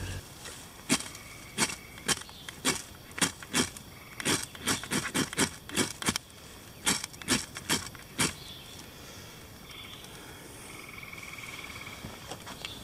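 Ferro rod scraped hard and repeatedly with a striker: about twenty sharp scrapes over some eight seconds, throwing sparks into a bundle of shredded bark and wood shavings, which then catches.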